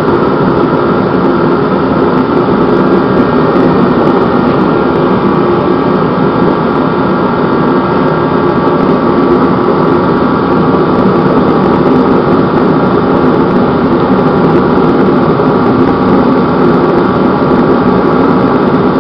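Heatstar 125,000 BTU kerosene forced-air torpedo heater running steadily: its fan motor and air compressor hum under the rush of the burner flame. The heater is firing properly after its repair.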